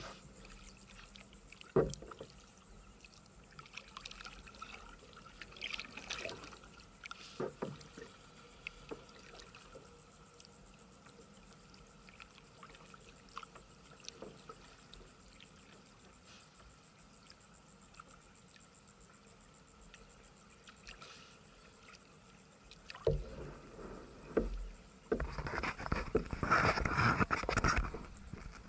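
Kayak moving over calm water, with a few light paddle knocks and drips. Near the end comes a few seconds of loud, churning splashing in the water.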